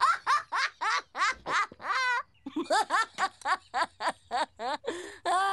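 A cartoon boy's voice laughing hard, in quick repeated ha's about three a second, with a brief break for breath about two seconds in.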